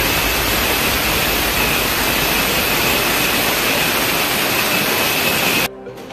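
Handheld electric angle grinder running steadily against marble, a loud hissing grind with a steady high whine. It stops abruptly near the end.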